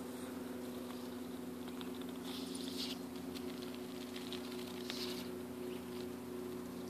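Indian runner duck nibbling and rustling with its bill in grass and dry leaves close by: a run of small clicks and crackles about two to five seconds in, over a steady low hum.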